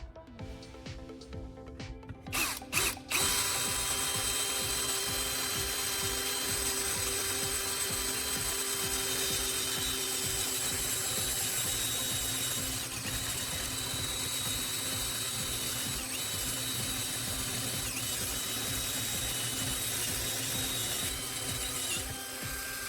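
Electric drill fitted with a freshly sharpened twist bit, boring through a metal piece and cutting easily. A few sharp clicks come about two to three seconds in, then the drill runs steadily.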